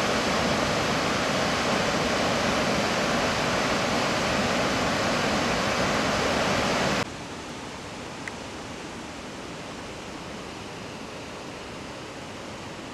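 Waterfall rushing steadily over rock ledges into a pool. About seven seconds in it cuts off suddenly, leaving a much quieter steady hiss.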